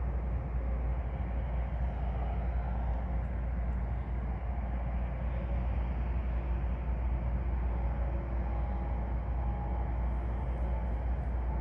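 Diesel-electric locomotives, an EMD SD70 and an SD70M-2, running with a steady low rumble. Faint high tones come and go over it.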